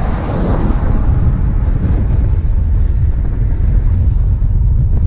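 Wind buffeting the microphone of a helmet camera on a moving electric bike, a steady loud low rumble, with a brighter rush in about the first second.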